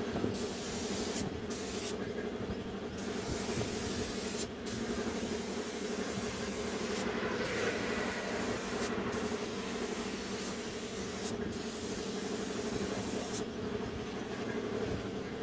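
Air spray gun hissing as paint is sprayed, the hiss cutting out briefly several times as the trigger is released and stopping for the last couple of seconds. A steady low machine hum runs underneath.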